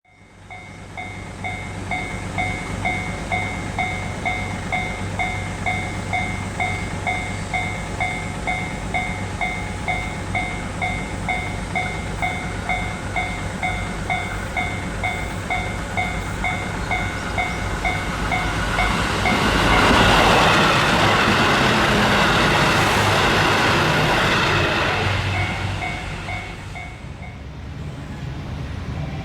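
Railway level-crossing bell ringing in a steady repeating ding-ding, then a JR Kyushu KiHa 200 series diesel railcar passing close by about two-thirds of the way in, its rush of wheels and engine drowning the bell for several seconds before the bell is heard again near the end.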